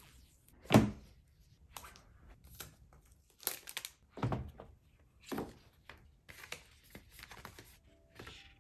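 Unboxing an Apple Magic Keyboard: the box's paper pull-tab ripping open with a sharp tear about a second in, then a run of short cardboard-and-paper handling noises, rustles and thunks as the lid comes off and the keyboard is lifted out. Soft background music comes in near the end.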